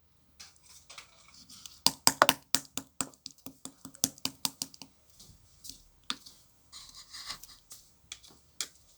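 Slime topped with shaving foam being pressed and squished by hand, making a dense run of sharp clicking pops and softer crackles.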